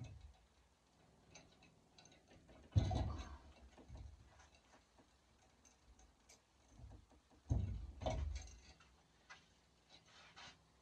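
Skinning noises: scattered light clicks and rustling as a raccoon hung from a metal gambrel on a chain is handled and cut with a knife, with two louder knocks about three and eight seconds in.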